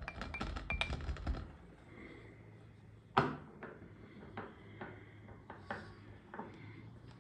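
Quick repeated knocks of a wooden pestle tamping kinetic sand into a drinking glass, each with a short glassy clink, stopping about a second and a half in. About three seconds in comes one sharp knock, then a few soft clicks.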